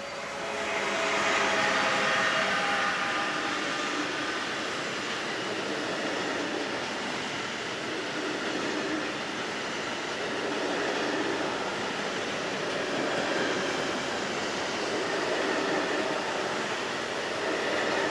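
SNCF BB 27000 electric locomotive hauling a rail-motorway freight train of semi-trailers on low-floor wagons past the track side. A whine of several tones fades over the first few seconds, then the wagons' wheels make a steady rolling rumble on the rails.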